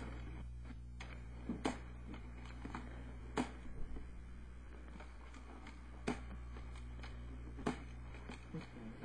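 A steady low hum with about half a dozen short, sharp clicks scattered through it.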